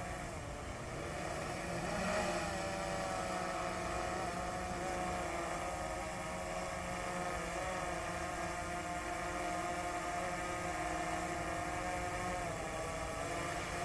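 DJI Phantom 3 Standard quadcopter's propellers whining as it comes down to land, the pitch wavering now and then as the motors adjust, a little louder about two seconds in.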